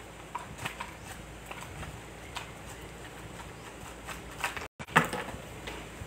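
Banana fritters deep-frying in a large pot of hot oil: a steady sizzle with scattered small clicks and pops. About five seconds in the sound cuts out for an instant, then comes a sharp click, the loudest sound here.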